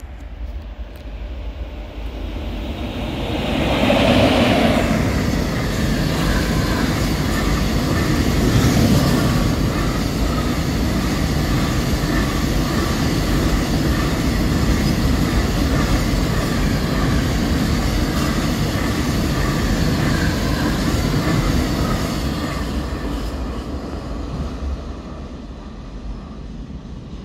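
Freight train of covered hopper wagons running through close by. The rumble grows and peaks about four seconds in as the front of the train passes. A long steady rumble and rattle of the wagons on the rails follows, then it fades over the last few seconds as the train moves away.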